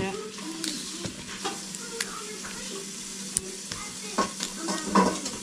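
Bok choy leaves being snapped off the stalk and handled: several crisp snaps, the loudest near the end, and leaf rustling over a steady hiss.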